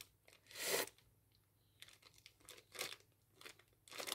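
Small clear plastic zip-lock bag crinkling as it is handled, in a few short bursts, busier near the end.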